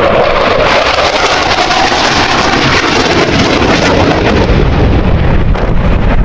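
Loud, steady jet noise from the Dassault Rafale C's twin M88 turbofans in afterburner, as the fighter passes close and pulls up into a climb. The higher part of the noise thins out near the end.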